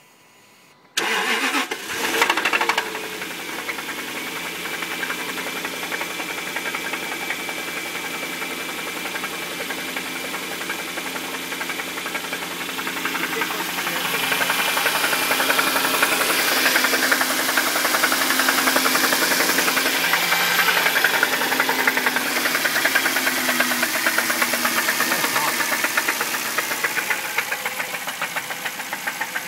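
Jaguar 4.0-litre AJ27 V8 cranking and catching about a second in, then running with a rapid, continuous knocking, louder through the middle stretch and easing near the end. The owner was told it is rod knock, but it could be failed timing chain tensioners letting the chain slap badly.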